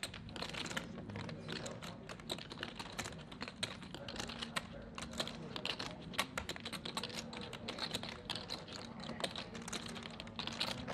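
Clay poker chips clicking together as they are riffled and handled at the table, a quiet, dense run of irregular clicks.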